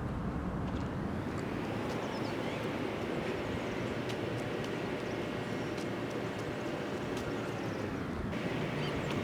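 Steady outdoor background noise, a low rumble with a faint hum that fades out about eight seconds in.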